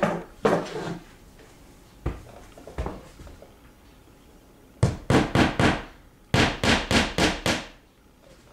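Hammer driving a nail into the wall: a few lighter knocks, then two quick runs of strikes, about five a second, with a short pause between them.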